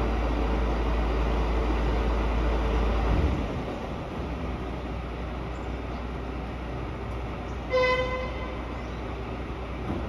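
Low rumble of a recycling truck's diesel engine, an MAN TGM 18.290, running off-screen and dropping away about three seconds in. A single short horn toot sounds near the end.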